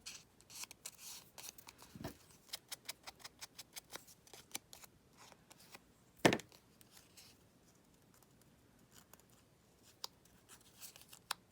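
Paper and washi tape being handled and folded on a small paper tag: a fast run of small clicks and crinkles, then one louder tap a little past the middle, and a few more clicks near the end.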